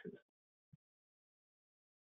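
Near silence: a pause in narration, cut to dead silence apart from one faint brief blip.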